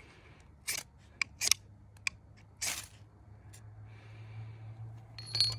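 Steel knife spine scraped down a ferrocerium rod in a series of short, sharp strikes, about five in the first three seconds and one more near the end, throwing sparks onto a tinder fire disc.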